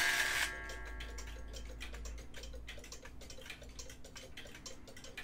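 Kienzle wag-on-the-wall clock ticking steadily. About half a second in, a louder whirring of its mechanism stops, and ringing tones fade out over the next second or so.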